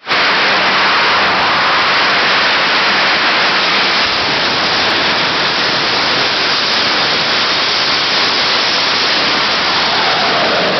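Jet engine of a jet-powered golf cart running with a loud, steady roar. Near the end its whine starts sliding down in pitch.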